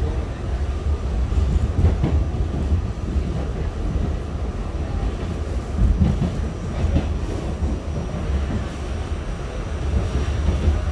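R68 subway train running along the track, heard from on board: a steady low rumble of wheels and motors with occasional faint knocks from the rails.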